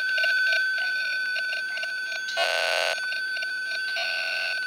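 Homemade EMF pickup amplifier box sitting on a phone running the EchoVox ghost-box app, putting out the phone's electromagnetic signal as sound: a steady high-pitched whine, with a half-second burst of choppy, buzzy sound about halfway through and another near the end.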